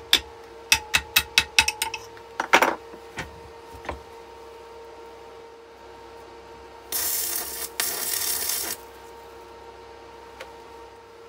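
Rapid light metal tapping, about six taps a second, stopping about two seconds in, then a single heavier knock. About seven seconds in, two short bursts of electric welding arc hiss and crackle, tack welds on steel, over a steady electrical hum.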